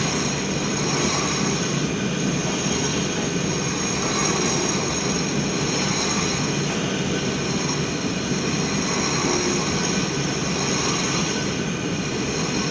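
A machine running steadily: a constant high whine over a dense, even rumble, with no pauses or changes.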